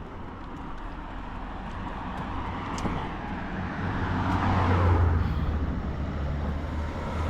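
A motor vehicle approaching and passing close by on the road, its noise swelling to a peak about five seconds in, with a low engine hum that stays on afterwards.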